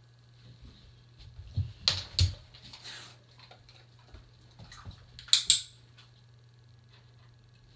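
Sharp clicks and knocks in two short clusters, about two seconds in and again about five seconds in, with soft rustling between, over a steady low hum.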